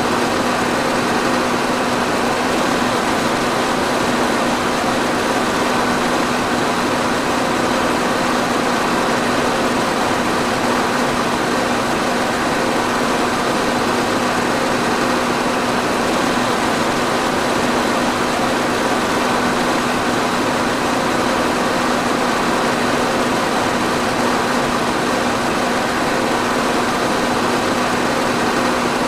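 Electric fan running steadily: an even rush of air with a constant low hum underneath, unchanging throughout.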